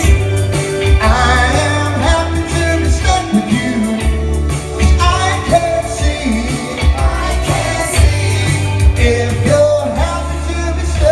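A man singing a ballad live into a microphone over amplified instrumental accompaniment with a steady bass line.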